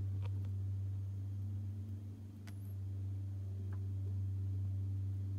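Steady low hum from the fermentation chamber's cooling unit running, with a few faint clicks.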